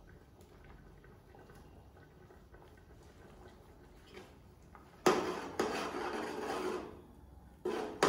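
Faint scraping and small clicks as ground onion and ginger paste is scraped off a china plate into an aluminium cooking pot. About five seconds in comes loud stirring and scraping in the pot of frying chicken, which breaks off briefly and starts again near the end.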